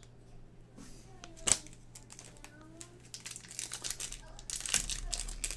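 A single sharp tap about a second and a half in, then, near the end, the crinkling and tearing of a Topps Chrome foil card pack wrapper being ripped open by hand.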